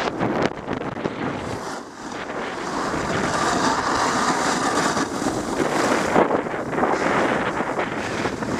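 Snowboard, a Bataleon Boss 157, sliding and carving on packed snow, its edge scraping steadily, with wind buffeting the microphone of the pole-mounted action camera.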